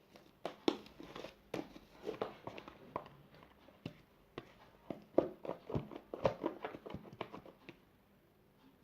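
Fluffy slime of shaving foam, glue and borax being squeezed and stretched in the hands, giving a quick irregular run of small wet clicks and squelches, busiest about five to seven and a half seconds in.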